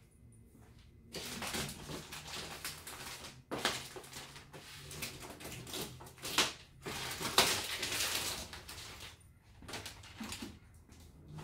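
Plastic wrapping on a cardboard appliance box crinkling and crackling as it is cut open with scissors and pulled off. It starts about a second in and thins out to a few scattered ticks near the end.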